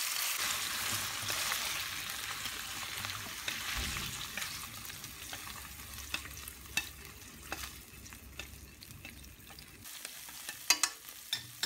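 Thinly sliced beef sizzling in hot oil in a frying pan as it is stirred, the sizzle gradually dying down. Near the end, a few sharp clicks of wooden chopsticks against the pan.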